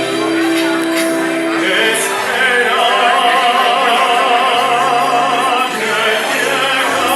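A song playing loudly: a singer holds long notes with a marked vibrato over a steady accompaniment and bass line.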